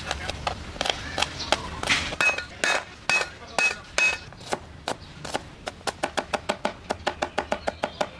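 Knife blade chopping on a cutting board: irregular strokes through chili, then a cleaver striking and mincing garlic, a few blows carrying a short ringing tone, settling into rapid even chopping at about five strokes a second in the second half.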